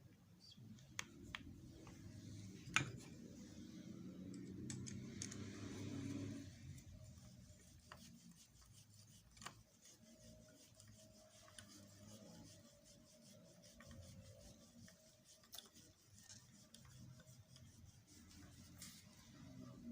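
Near silence with faint rubbing and a few scattered light clicks.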